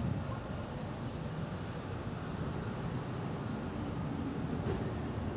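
Outdoor ambience: a steady low rumble, with a few faint, short high-pitched chirps scattered through it.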